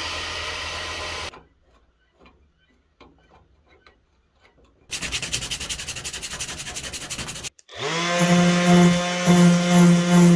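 Tool work on an old hand plane. A second of steady rubbing, then a quiet stretch with a few light clicks, then fast rhythmic scraping strokes. Near the end a power tool's motor spins up and runs with a steady hum.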